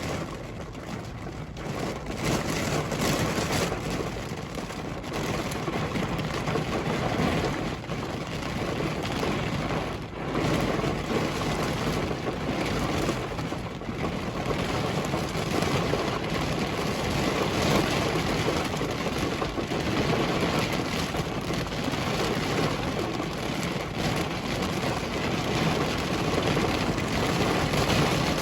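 Thunderstorm downpour on a car, a dense steady hiss of rain that swells and eases, with a brief lull about ten seconds in.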